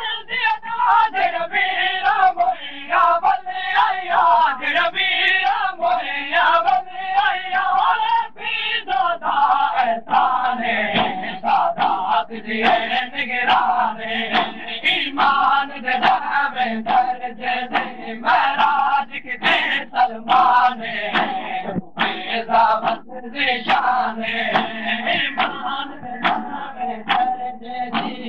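A noha (Shia mourning lament) chanted by a crowd of men behind a lead reciter, with the repeated slaps of hands on chests (matam) keeping time.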